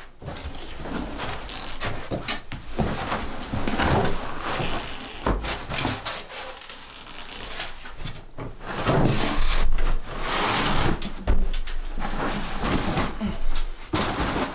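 A cardboard box being opened and unpacked: cardboard flaps and packing rustling and scraping, with a few dull knocks as a small metal stove is handled and lifted out.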